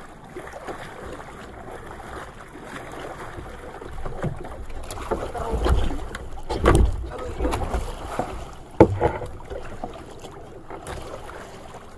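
Choppy sea water splashing against a small outrigger fishing boat, with wind on the microphone. The splashing comes in louder surges midway, and one sharp knock comes about nine seconds in.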